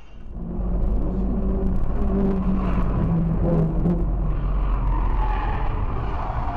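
Engine and road noise heard inside a moving vehicle: a steady low rumble with an engine note that wavers in pitch.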